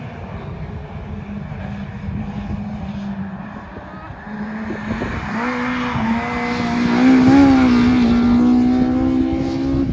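Racing car engine at high revs, its pitch climbing about five seconds in and then holding near the top.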